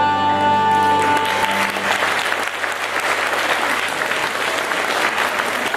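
Music ending on a held note about a second in, then an audience applauding.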